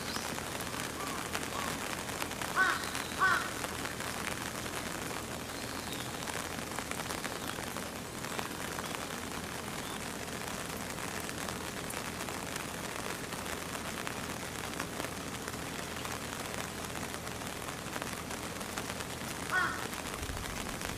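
Steady rain noise, with two short, sharp calls about three seconds in and another near the end.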